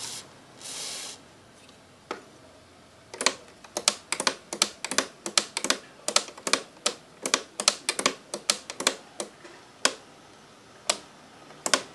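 Short hiss of an aerosol cleaner spray, then rapid, irregular sharp clicks, about three or four a second, as a slide switch on a Pioneer double-cassette radio is worked back and forth. The switch is being freed after cleaning, since dirt and rust make it stiff and scratchy.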